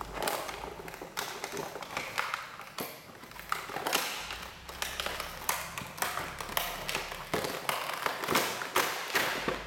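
Action figure packaging being handled: irregular taps, clicks and knocks of plastic trays and cardboard as figures are pulled out of a pre-opened Battle Pack box.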